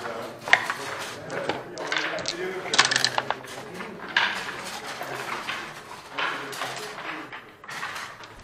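Backgammon play: sharp clicks of checkers set down and dice thrown on the board, with a single click about half a second in, a quick rattling clatter about three seconds in, and another click about four seconds in.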